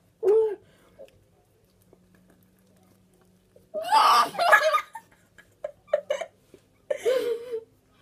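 Girls laughing and squealing in several short bursts, muffled by mouths stuffed with marshmallows, with quiet gaps between.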